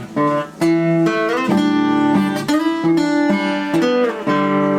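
Acoustic guitar played live, with chords strummed and notes picked and left to ring, changing every second or so.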